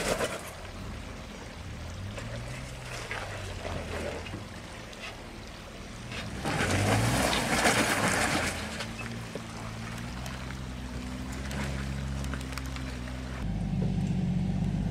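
Jeep Wrangler's engine working in low gear as it crawls up a rocky ledge, its pitch rising and falling in surges, the loudest about seven seconds in, then settling to a steadier run. Near the end a different engine takes over, running steadily and deeper.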